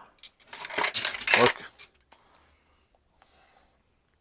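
Steel wrenches clinking and rattling against one another as they are handled and set down, a cluster of sharp metallic clinks lasting about a second.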